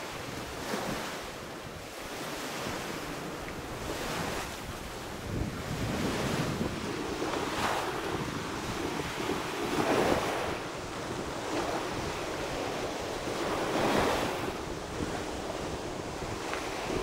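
Sea surf washing on a sandy beach, with wind buffeting the microphone; the noise swells and fades every few seconds.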